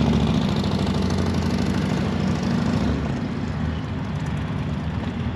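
Bagger motorcycle engine running as the bike rides away, its sound fading over the last couple of seconds.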